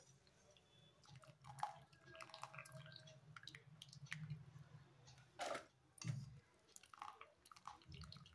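Faint wet squishing and dripping as a ladle scoops soft boiled potato slices out of a pot of hot water into a plastic colander. Scattered light knocks of the ladle against the pot, the loudest two about five and a half and six seconds in, over a faint low hum.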